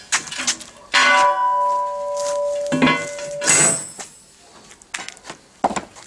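Piece of 6 mm steel plate clanging about a second in and ringing like a bell with several steady tones for about two seconds, followed by more metal knocks and clatter.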